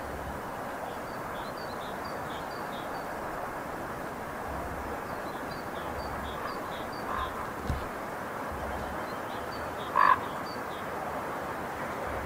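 Steady rolling noise of a freight train, with small birds chirping in short runs over it, a thump near the middle, and one loud, short call about ten seconds in.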